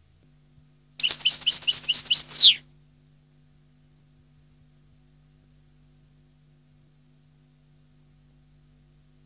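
European goldfinch singing one short phrase about a second in. It is a quick run of about five high, repeated notes a second, ending in a falling slur.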